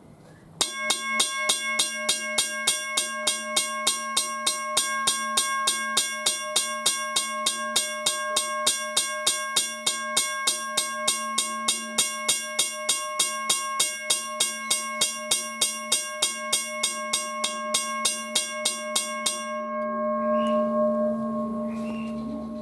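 Western Road Supply mechanical railway crossing bell ringing: the striker hits the gong at about three even strokes a second for roughly nineteen seconds. Then it stops and the bell rings out.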